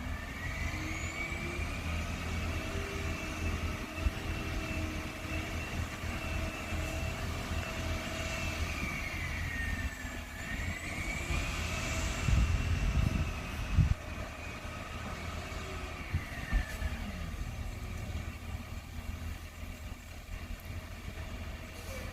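Excavator's diesel engine and hydraulics working over a steady low rumble: the pitch rises in the first couple of seconds, holds, dips and climbs again around the middle, and falls away near the end. A few sharp clanks come about four seconds in and around two-thirds of the way through.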